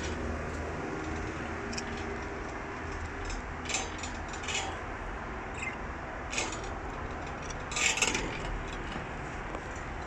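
Steady low hum and hiss, broken by a few short, sharp high-pitched sounds, the loudest about eight seconds in.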